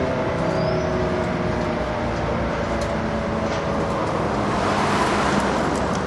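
Allertor 125 outdoor warning siren sounding a steady tone. The tone fades and swells as the rotating horn sweeps around, loudest about five seconds in.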